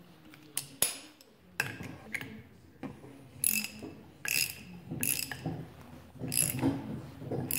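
Socket ratchet wrench cranking a bolt into a car generator: a few metal clinks, then repeated ratchet strokes about a second apart as the bolt is run down.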